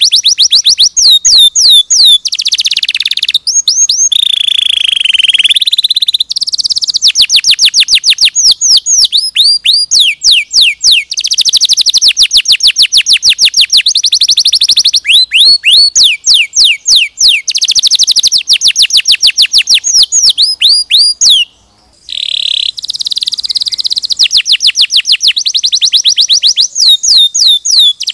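Domestic canary singing without pause: long rapid trills of repeated notes, many of them quick downward sweeps, with a few held tones, broken once by a short gap about three-quarters of the way through.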